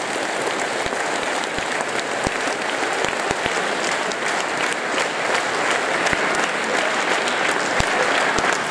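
Large audience applauding steadily, many hands clapping at an even level throughout.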